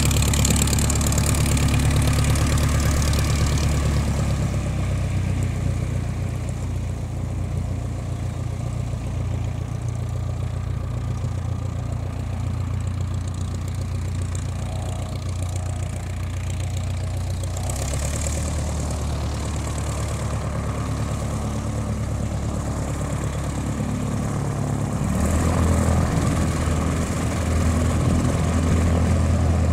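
Small propeller-aircraft piston engines idling, a steady low drone that shifts in pitch and level a few times and grows louder again near the end.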